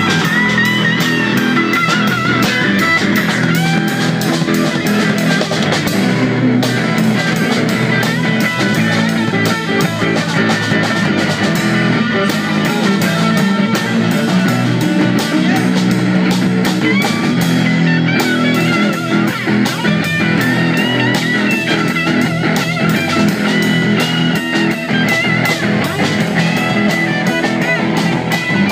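Rock band playing live, with guitar lines over drums keeping a steady beat.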